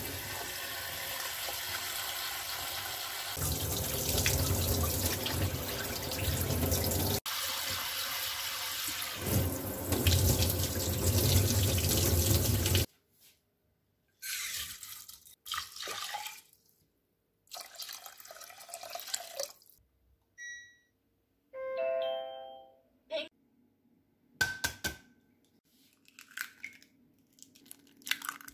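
Kitchen tap water running into a glass bowl of rice being rinsed, steady for about thirteen seconds before it shuts off. After that come a few short bursts of handling noise as the rice is tipped into a rice cooker's inner pot, and a brief pitched tone.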